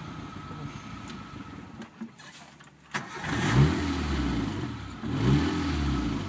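An off-road 4x4's engine, heard from inside the cabin, runs steadily, then dies away almost to nothing about two seconds in. About three seconds in, a click and the engine catches again, then is revved up twice.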